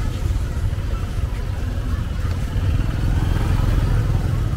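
A motor vehicle running with a steady low rumble.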